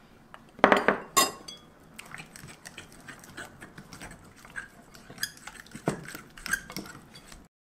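Metal utensil knocking against a small glass bowl, a few sharp clinks about a second in, as the last of the starch powder is scraped out. Then a utensil stirring batter in a glass mixing bowl, with light clicks and scrapes against the glass.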